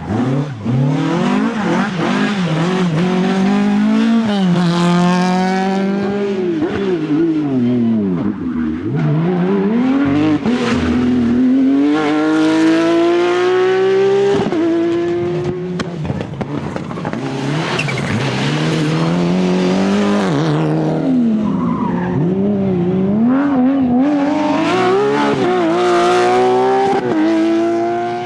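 Rally car engines revving hard through the gears: the note climbs, drops at each quick shift and climbs again, and falls away under braking before picking up again.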